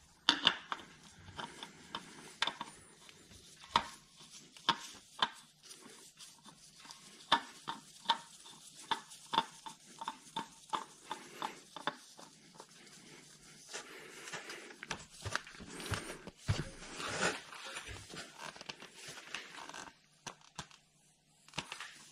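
A nitrile-gloved hand screwing a new oil filter onto its threaded mount by hand until it is hand tight. Many small clicks and taps in the first half, then a longer stretch of rubbing as the filter is turned.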